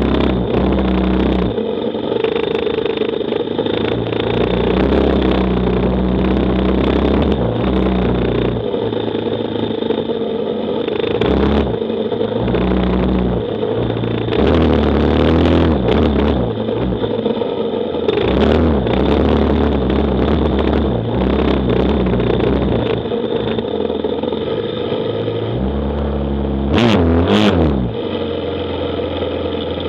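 KTM 450 XC-F dirt bike's single-cylinder four-stroke engine under load on sand, revving up and down with the throttle. Near the end it gives a short blip of revs, then settles to idle as the bike comes to a stop.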